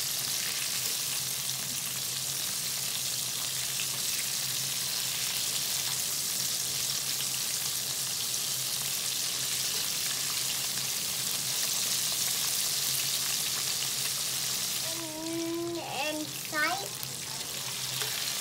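Breaded chicken tenders deep-frying in hot oil, a steady sizzle as they are turned with a wire spider skimmer. The sizzle drops off near the end.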